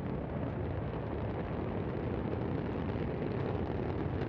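Steady, deep rumble of the Antares rocket failing and exploding just after liftoff, with no single sharp bang.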